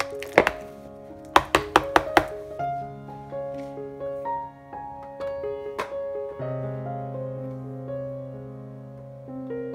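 Metal potato masher knocking against a ceramic bowl while mashing bananas: a quick string of about six knocks in the first two seconds, then stopping. Soft piano background music plays throughout.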